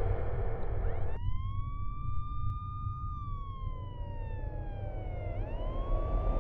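A siren wails: it winds up about a second in, holds, slowly falls, then winds up again near the end. A steady low rumble runs underneath, and a rushing noise in the first second stops abruptly as the siren starts.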